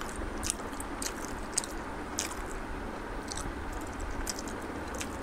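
A person chewing food close to the microphone: soft wet mouth clicks and smacks, scattered irregularly, over a steady background hiss.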